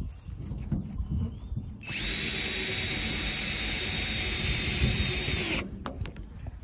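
Cordless drill running steadily under load into a boat hatch's mounting flange on the roof. It starts about two seconds in and cuts off suddenly after about three and a half seconds.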